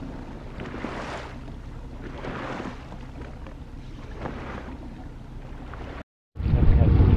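Water washing against a small boat's hull in soft swells about every second and a half, over the low steady hum of an outboard motor at trolling speed. About six seconds in the sound drops out briefly, then comes back much louder with wind buffeting the microphone.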